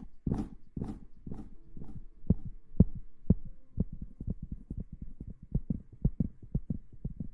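Close-up ASMR trigger sounds on a microphone: a few soft brushing, rustling strokes about two a second, then a run of short, low, muffled thumps that speed up to about four or five a second.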